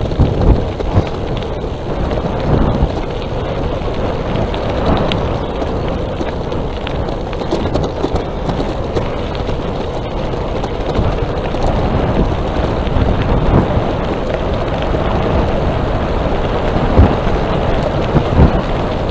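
Wind buffeting the microphone over the rumble of tyres on the road from a moving electric bicycle, with a few brief bumps.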